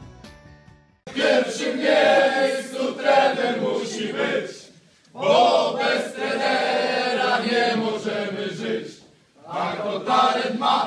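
A group of men singing together in unison, in phrases a few seconds long with short breaks between them. A recorded song fades out just before the singing starts.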